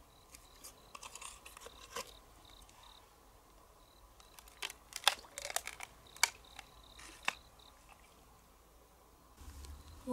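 A knife scraping and prying at the shell of a large freshwater pearl mussel, with scattered clicks and crunches of blade on shell; a cluster of louder clicks comes about five seconds in, as the shell is forced open.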